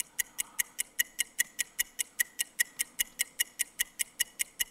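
Game-show countdown timer sound effect: quick, even ticks, about five a second, counting down the time allowed to study the song titles.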